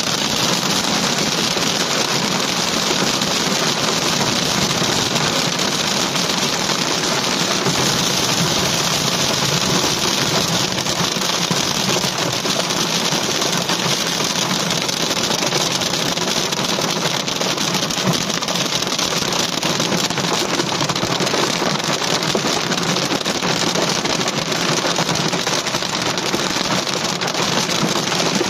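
Heavy rain mixed with hail pelting a car's roof and windshield, heard from inside the cabin: a dense, steady patter of countless small impacts.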